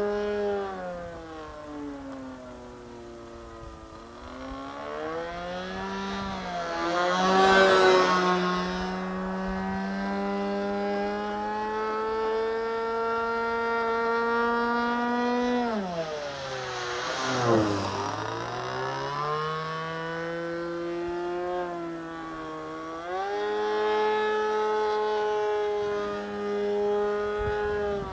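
Engine of an RC Phoenix Edge 540 model aerobatic plane with a can muffler, buzzing steadily in flight with the pitch rising and falling as the throttle changes. It makes two close passes, about 7 and 17 seconds in, where the pitch drops sharply as it goes by. The first pass is the loudest moment.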